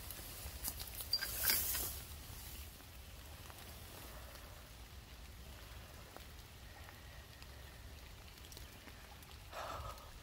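Rustling and swishing of tall wet grass as a juvenile bald eagle is grabbed and lifted out of it, loudest about a second and a half in, then a faint steady hiss with a short noise near the end.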